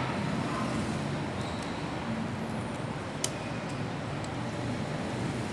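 Steady low background noise, with one sharp click about three seconds in and a few faint ticks as the parts of a large Optimus Prime action figure are handled.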